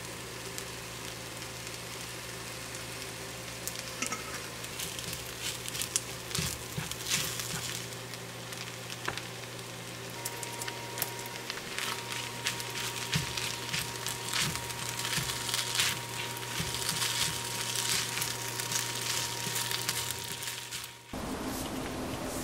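Pineapple fried rice sizzling in a frying pan while a wooden spatula stirs and scrapes it, with small clicks from the spatula over a steady low hum. The sizzling cuts off abruptly near the end.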